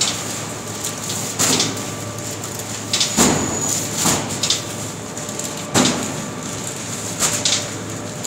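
Heavy paper sacks of cement thudding onto a stack several times at irregular intervals, the heaviest about three seconds in, over the steady running of a belt conveyor.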